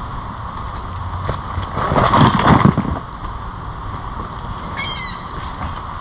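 Steady outdoor background noise, with a loud rustling noise about two seconds in that lasts about a second, and a short, high, falling call near five seconds in.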